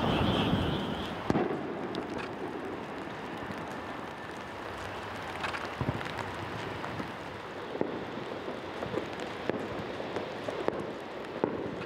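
Aerial firework shells bursting, with a dense crackle dying away in the first second, then scattered separate bangs every second or two over a steady background hiss.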